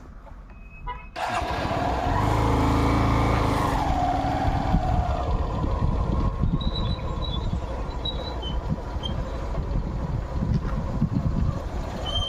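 A vehicle engine running, starting suddenly about a second in, with a falling tone over the next few seconds, then steady running with low buffeting like wind on the microphone.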